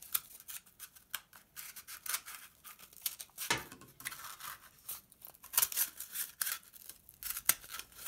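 Cardboard scraping and rustling as a cut cardboard wing is pushed through a slit in a flattened toilet-paper roll: a run of short, irregular scratches and clicks.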